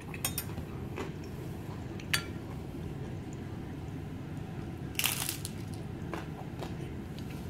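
A person chewing a mouthful of food, with a few light clicks and a short clatter about five seconds in.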